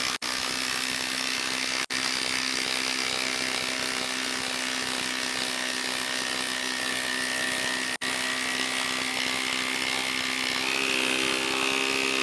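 Makita brushless cordless impact driver hammering a 6-inch lag screw into a solid wood stump under heavy load. It runs as one steady mechanical drone and rises a little in pitch about ten and a half seconds in, with three split-second gaps.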